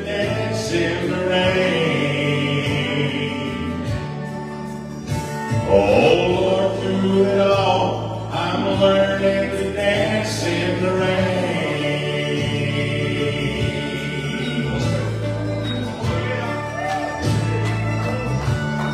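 Gospel music: voices singing over instrumental accompaniment.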